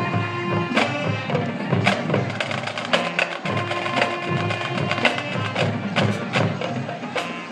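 High school marching band playing on the field: sustained notes under sharp percussion hits roughly once a second.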